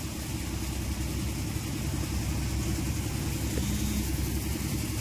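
Jangeer tokri-model threshing machine, driven by an Eicher tractor, running steadily while threshing chickpeas: an even, dense low rumble of tractor engine and machine with no change in speed.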